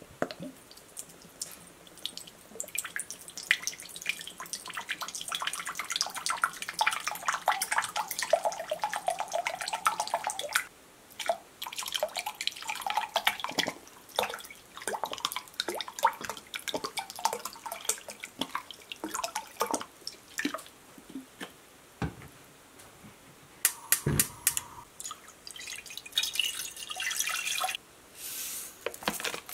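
Vinegar poured from a bottle into a glass measuring cup, glugging and splashing, in two long pours. There is a single knock about three quarters of the way through. Near the end, dry brown mustard seeds rattle and hiss as they pour into a ceramic bowl.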